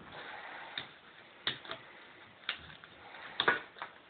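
Irregular light clicks and knocks, about six in four seconds, the loudest about three and a half seconds in: handling noise from things being moved.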